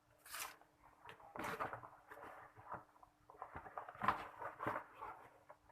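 Irregular scraping, rustling and light knocks of parts and materials being handled during hand assembly work, over a faint steady hum.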